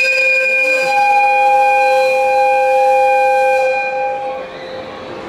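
EF55 1 electric locomotive's whistle sounding one long blast of about four seconds, several notes held together as a chord. It starts suddenly and fades away with the echo of a large hall.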